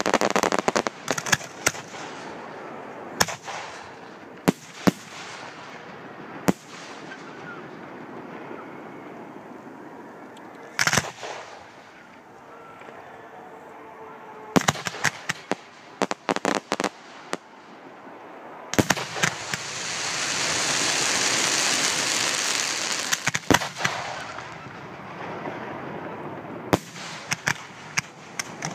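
Fireworks display: aerial shells bursting with sharp bangs, some single and some in quick crackling clusters, and a long hiss lasting several seconds about two-thirds of the way through.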